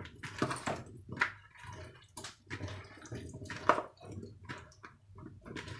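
Hands tossing chopped vegetables through a wet sauce and oil in a plastic bowl: irregular wet, squishing strokes, one sharper stroke a little past the middle.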